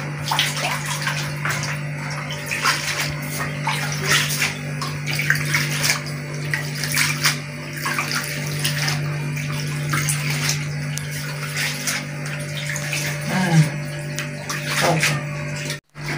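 Hands washing and squeezing shredded green leaves in a plastic basin of water: irregular splashing and sloshing, over a steady low hum.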